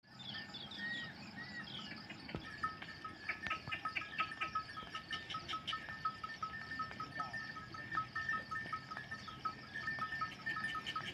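A herd of goats bleating as they walk, over a steady pattern of high repeated notes.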